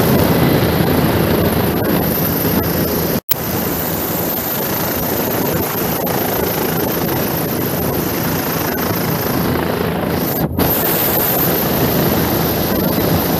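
Bell 407 helicopter running on the ground close by: a loud, steady rush of its turbine and rotor with a high whine and a low hum. The sound cuts out briefly twice.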